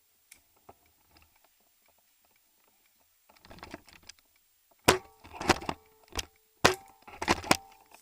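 A quiet stretch, then about six sharp cracks and clacks in quick succession over the last three seconds, a few with a short ring after them.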